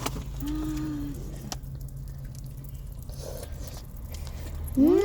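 A cat meowing once near the end: a loud, drawn-out call that rises sharply, then slides slowly down in pitch, over a steady low hum.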